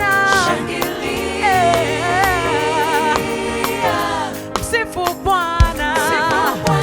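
Upbeat gospel praise music: voices singing a melody with vibrato over a band, with a choir.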